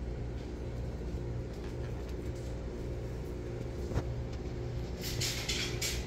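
A steady low mechanical rumble, with a pulsing low hum, runs under the scene; a single sharp click comes about four seconds in and a short burst of rustling hiss near the end.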